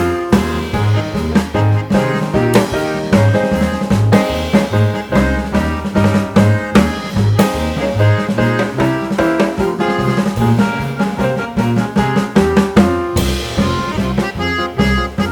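Instrumental background music in a jazz style: a drum kit keeping a steady beat over a moving bass line, with a cymbal crash near the end.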